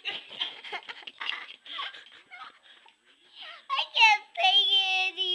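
A young child's voice: soft breathy murmuring in short bits, then about four seconds in a rising squeal that turns into a long, high sung note.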